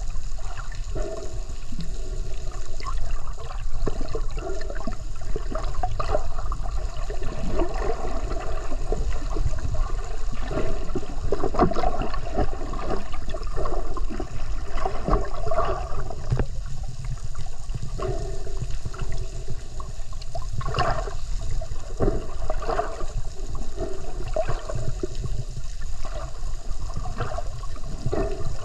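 Muffled rushing and gurgling of water as heard by a microphone underwater, over a steady low rumble, with irregular swishes that come and go.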